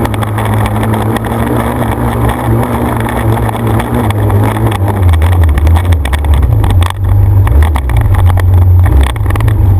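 Onboard off-road vehicle engine running steadily at speed on sand, its low drone dropping in pitch about halfway through. Wind buffets the microphone over it.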